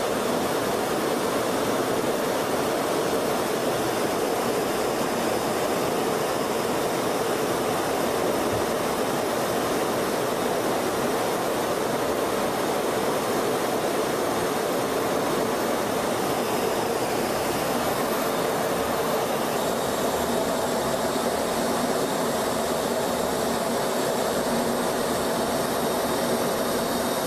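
Jet aircraft in flight: a steady, even rush of engine and airflow noise, as heard aboard an aircraft in the air. It cuts off abruptly at the end.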